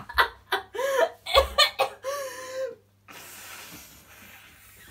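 Hearty laughter in quick bursts with a few drawn-out pitched whoops, then, about three seconds in, a long breathy hiss of air blown through the nose into a condom, fading slowly.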